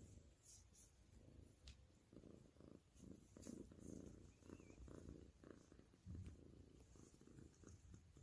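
Tabby-and-white domestic cat purring faintly, the low rumble swelling and easing in a slow rhythm.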